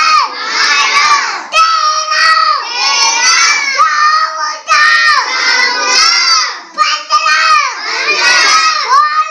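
Children shouting loudly and excitedly, a string of high-pitched shouted phrases, one about every second.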